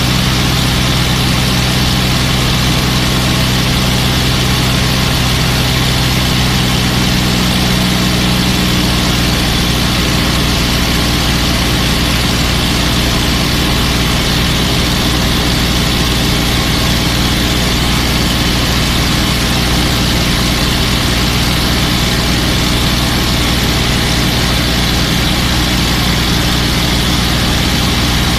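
P-51 Mustang's Packard Merlin V-12 engine and propeller droning steadily in cruise, heard from the rear cockpit with a constant rush of air noise over it. The engine's tone shifts slightly about nine seconds in.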